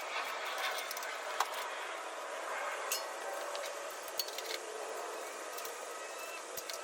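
Scattered light metallic clinks and taps of small parts being handled during tool-cart assembly, over a steady background hiss.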